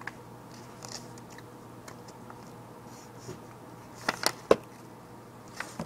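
Writing and handling of a sheet of paper: faint scratches and ticks, then a quick cluster of sharp clicks and rustles about four seconds in.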